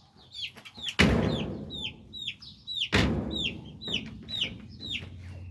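Young chicks peeping over and over, short high falling peeps a few each second. Two loud thumps cut in about one second and three seconds in.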